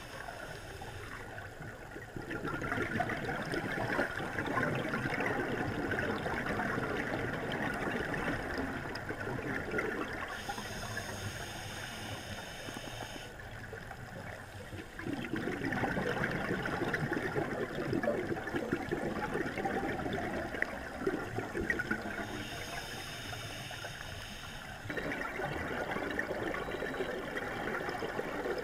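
Scuba diver's exhaled air bubbling out of the regulator underwater, in long spells of bubbling broken by quieter gaps between breaths.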